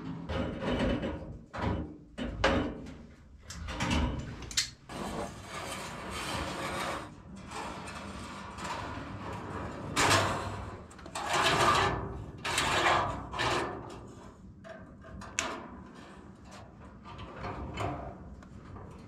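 Springy wire mesh scraping and rattling against a metal stovepipe as it is bent and pressed into place around the pipe, in irregular bursts with small clicks.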